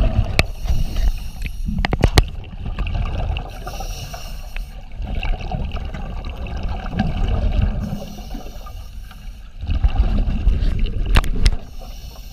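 Underwater sound through a submerged camera: a low, muffled wash of moving water and bubbles that swells and fades, with a few sharp clicks or knocks, a cluster about two seconds in and another near the end.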